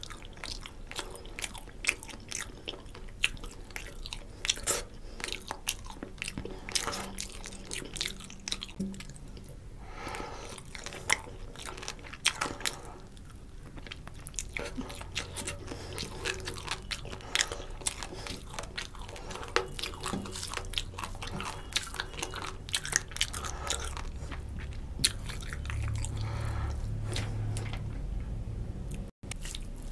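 Close-miked chewing and wet mouth sounds of a man eating rice and fried rohu fish curry by hand, with many sharp smacks and clicks.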